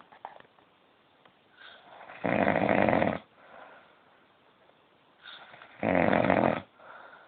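A sleeping man snoring: two loud snores, each about a second long and about three and a half seconds apart, with quieter breaths in between.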